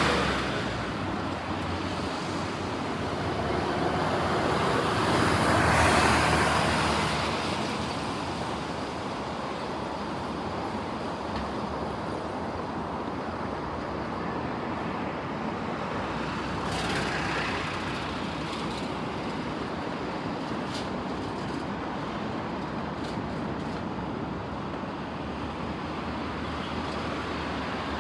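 Road traffic going by: a steady rush of passing vehicles. One vehicle fades away in the first second, another builds to a peak about six seconds in and dies away, and a lighter one passes a few seconds after the middle.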